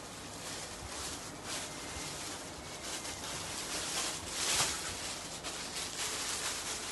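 Cotton lawn fabric rustling as it is handled and spread out, a run of irregular swishes with the loudest a little past halfway.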